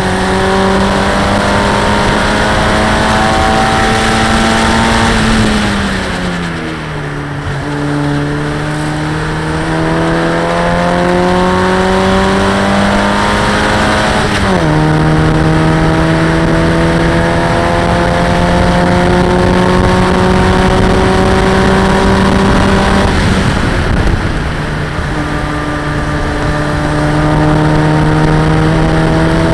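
Locost racing car's engine at full throttle, heard from inside the open cockpit with wind and road noise. Its pitch climbs steadily, falls away about six seconds in as the driver lifts for a corner, drops sharply about fourteen seconds in at an upshift, dips again near the end, then climbs once more.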